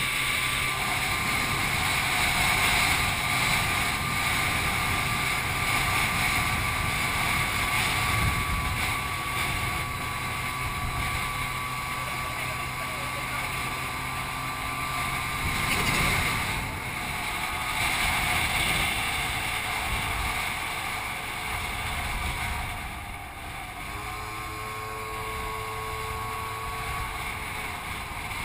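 Scooter engine running at cruising speed with a steady drone, mixed with wind rushing over the mounted camera's microphone. Late on the sound eases and the engine note shifts in pitch.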